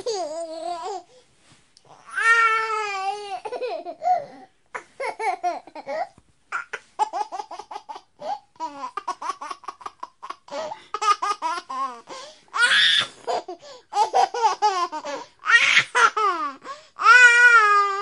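A baby laughing in repeated bouts, some as quick runs of short laugh pulses and some as longer wavering, high-pitched held laughs, with babbling between them.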